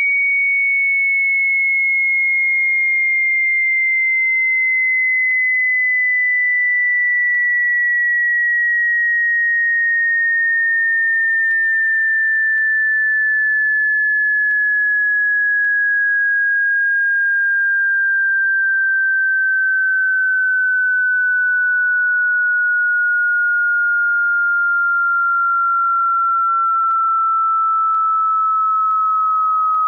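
Pure sine-wave test tone of a high-to-low hearing-test sweep, a single clean whistle-like pitch sliding slowly and steadily lower at a constant volume.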